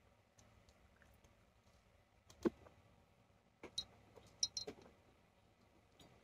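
A few light clicks and taps over a quiet room: a sharp one about two and a half seconds in, then a quick cluster of small, bright clicks a second or two later.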